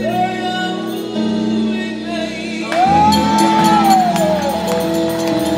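A woman singing a gospel song into a microphone over sustained backing chords, with light percussion ticking along; the music gets louder about three seconds in.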